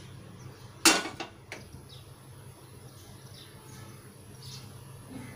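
Stainless steel frying pan on a gas burner clanks sharply once about a second in, followed by two lighter metal clinks, as a spoonful of ghee goes into it. A low steady hum runs underneath.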